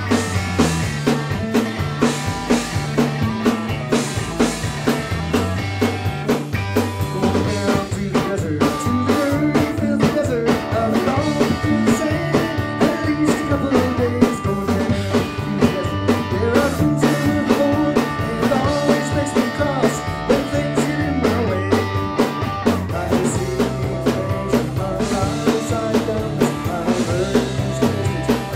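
Live three-piece rock band playing: electric guitar over bass guitar and drum kit, loud and continuous.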